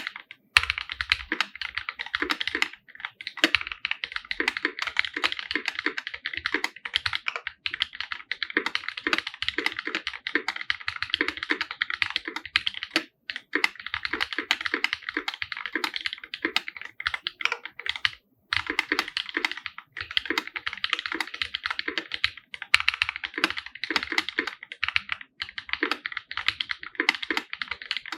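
Continuous fast typing on a 50% mechanical keyboard in an aluminum case, with tactile Holy Panda switches under GMK keycaps: a dense run of keystroke clicks and clacks with deeper thocks, broken by a few brief pauses.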